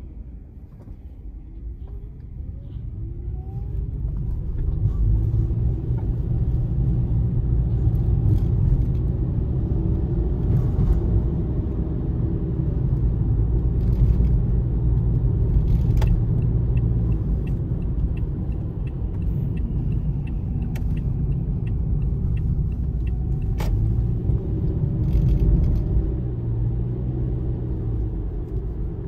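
A car driving through city streets: it pulls away with a faint rising engine tone over the first few seconds, then runs on with a steady low road and engine rumble. A light regular ticking comes in for several seconds in the middle, along with a couple of sharp clicks.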